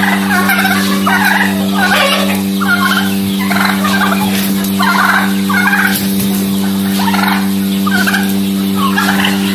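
Domestic turkeys calling over and over, short calls about twice a second, over a steady low hum.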